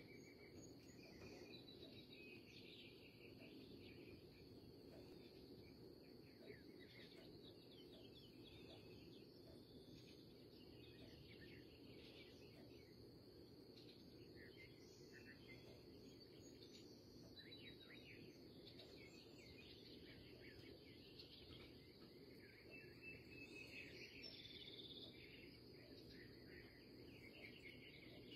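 Faint early-morning birdsong: many small birds chirping and trilling on and off, over a steady high insect drone, typical of crickets, and a low background hum.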